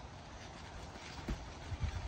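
Faint low thuds and rumble of players moving and bouncing on a Springfree trampoline's mat, with a couple of soft knocks in the second half.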